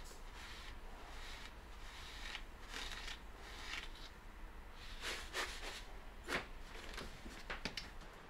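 Flour pouring in a fine stream into a stainless steel bowl, a soft hiss, followed by hands rubbing and sprinkling the flour with several sharper rustles in the last few seconds.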